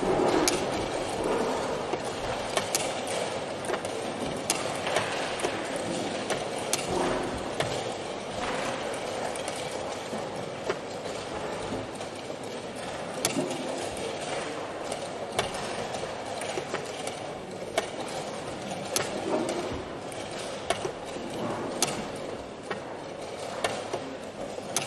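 Blitz chess moves: wooden pieces set down on the board and the chess clock's buttons pressed in turn, sharp knocks every second or two over steady background noise.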